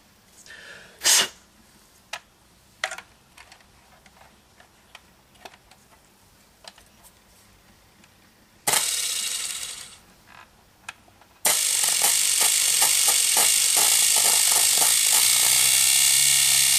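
A few handling clicks, then a large electric motor run off a battery bank through a switch spins briefly about nine seconds in and winds down. It starts again a couple of seconds later and runs steadily with a rapid rattling buzz, which the owner wonders comes from too little power or something rotten inside the motor.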